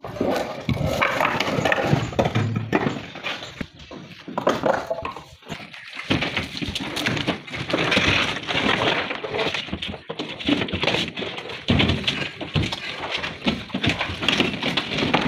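Natural flat stone slabs knocking, clattering and scraping against one another as they are handled and stacked: an irregular run of sharp knocks with short pauses between.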